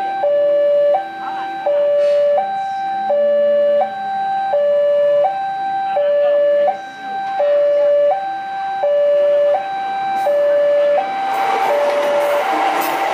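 Railway level-crossing warning alarm sounding a steady two-tone signal, a higher and a lower tone alternating about every 0.7 s: the crossing is closed for an approaching train. In the last couple of seconds a train's rushing rumble rises under the alarm.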